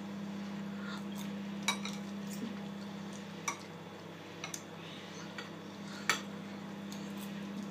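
Metal spoon clinking against a china bowl as a toddler scoops up rice, with a handful of sharp clinks, the loudest a couple of seconds in and again about six seconds in, over a steady low hum.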